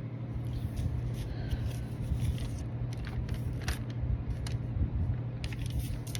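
A steady low hum runs throughout, with faint clicks and ticks scattered over it.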